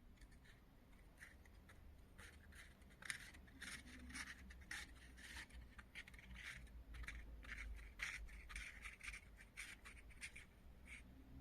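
Faint, irregular scraping and scratching strokes, many in quick succession, over a low steady hum.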